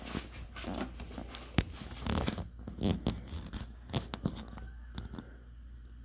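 Irregular clicks, crackles and rustles: handling noise on a handheld phone's microphone, with a few brief faint low sounds.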